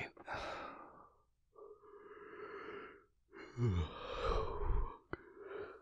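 A man's long audible breaths and sighs, three in a row, the third with a short low groan in it. A sharp click follows near the end, then one more short breath.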